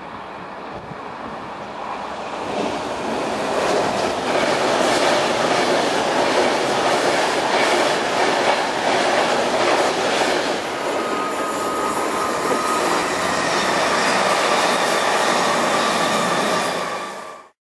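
Virgin Trains express passenger train passing close at speed: the rail and wheel noise builds over the first few seconds and stays loud, with a steady high tone joining in about halfway, then the sound cuts off suddenly near the end.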